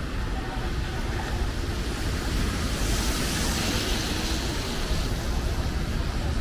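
Road traffic on a rain-wet street, with wind rumbling on the microphone. In the middle, a passing vehicle's tyres hiss on the wet asphalt, swelling and fading.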